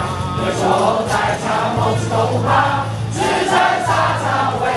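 Crowd of baseball fans singing a cheer song together over amplified music in the stadium, loud and continuous.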